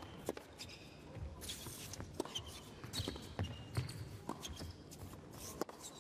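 A tennis rally on an indoor hard court: sharp pops of the ball off the rackets and its bounces on the court, with short squeaks of shoes on the surface.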